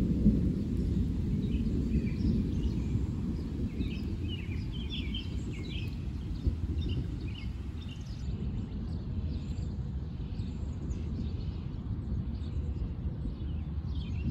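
Low rumble of distant thunder slowly fading away, leaving a steady low outdoor rumble. Birds chirp in short calls for a few seconds in the middle.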